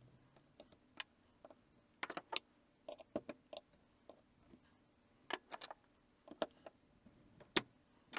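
Irregular sharp clicks and light knocks, some in quick clusters of two or three, as of small hard parts being handled.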